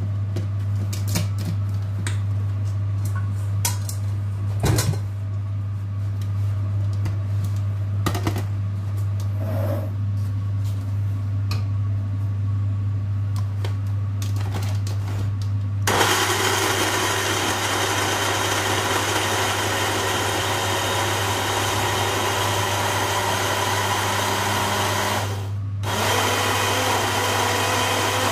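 Clicks and knocks as a plastic blender jar is lidded and set on its base. From about halfway through, a small personal blender runs, grinding soaked cashew nuts and garlic into a creamy dressing. It stops for a moment near the end and then starts again, over a steady low hum.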